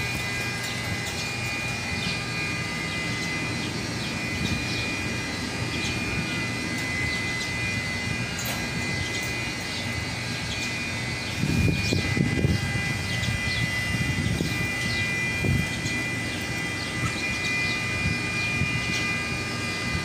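Steady mechanical drone with a constant high whine, growing louder with a low rumble about halfway through.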